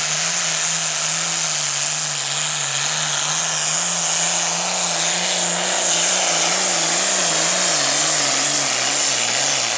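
1974 International Harvester hot farm tractor's diesel engine running at full power under load as it pulls the sled, with a strong high whistling hiss over a steady engine note. The engine speed starts to waver in the second half as the load builds.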